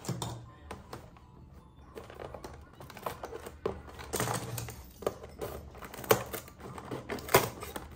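Hands handling plastic toys and packaging: an irregular run of clicks, taps and crinkles, with two sharper clicks near the end.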